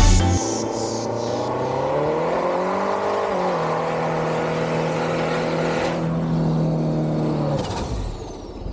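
A 4x4's engine under load: the revs climb over about two seconds, hold steady for several seconds, then drop away near the end.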